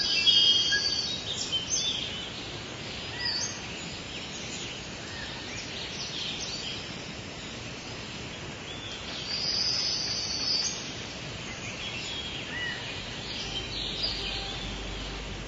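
Birds chirping and whistling: many short calls over a steady outdoor hiss, with a longer high trill at the start and another about nine seconds in.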